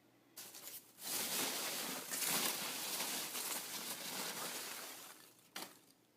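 Packaging being unwrapped by hand: a steady stretch of rustling and crinkling that fades out, with a single click near the end.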